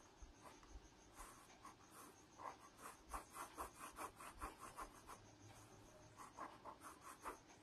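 Ballpoint pen scribbling back and forth on notebook paper, a run of faint, quick scratching strokes as a written mistake is crossed out.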